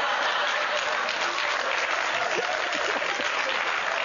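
Audience applauding steadily: dense, even clapping from a crowd, an applause break after a joke.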